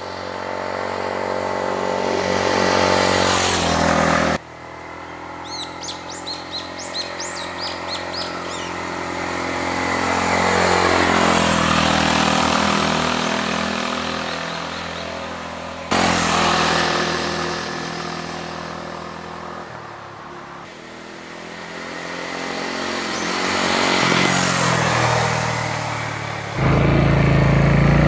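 Suzuki Grasstracker Big Boy's 250 cc single-cylinder engine riding past the roadside several times, growing louder on the approach and dropping in pitch as it goes by. Birds chirp briefly about six seconds in. Near the end comes the engine's steady running heard from on the bike.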